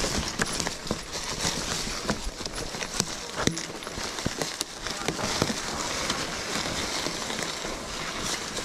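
Mountain bike tyres rolling over dry leaf litter and twigs on a forest trail: a continuous crackling rustle broken by scattered sharp clicks and knocks.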